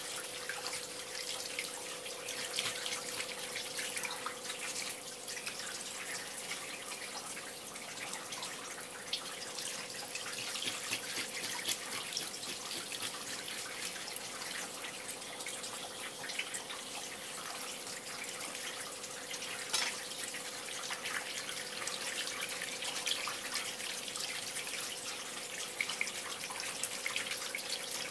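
A thin stream of tap water runs and splashes onto a horse mackerel and a wooden cutting board while a kitchen knife scrapes the last scales off the fish, with many small ticks in the splashing. A steady faint hum sits underneath.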